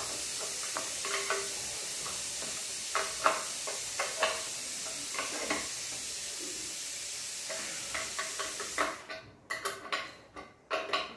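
A 10 mm spanner clicking and scraping against the mounting bolts and plastic bracket of a tyre hugger as the bolts are tightened. Some clinks are sharp, and a steady hiss runs underneath until it cuts off suddenly about nine seconds in.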